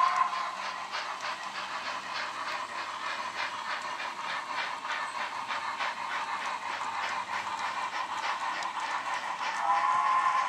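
HO scale model steam locomotive's sound system chuffing steadily as it hauls a freight train, a steam whistle sounding at the very start and again briefly near the end.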